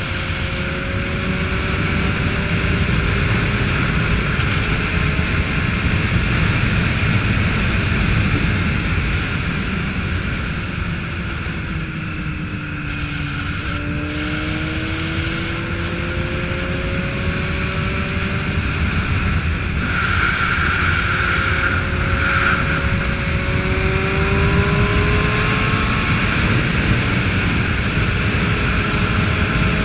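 Motorcycle engine running under way, with a steady rush of wind and road noise. About halfway through the engine note falls as the bike eases off, then rises again twice as it pulls away.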